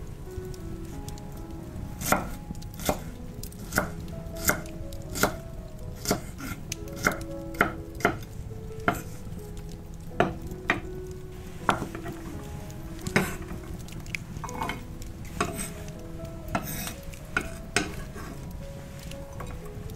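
Chef's knife chopping bell pepper strips on an end-grain wooden cutting board: irregular sharp knocks of the blade on the board, about one a second.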